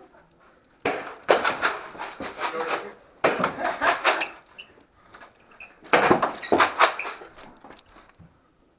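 Nerf Rival blasters firing in three bursts of rapid sharp knocks and clatter, the foam balls hitting walls and furniture.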